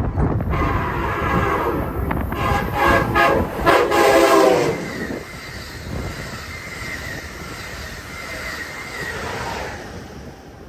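Amtrak train's Nathan K5LA five-chime air horn sounding a chord in several blasts, the longest and loudest ending about five seconds in. The train's rumble running past follows, quieter.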